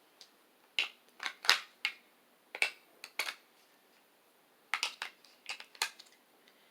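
A dozen or more short, sharp clicks and clacks in two irregular clusters, one in the first few seconds and another around five seconds in.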